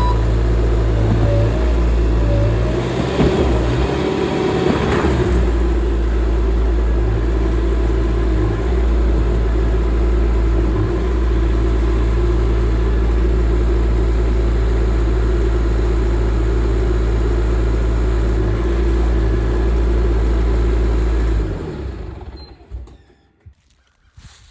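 Skid steer's engine running steadily, with a brief rise in pitch a few seconds in, then shutting off about three seconds before the end.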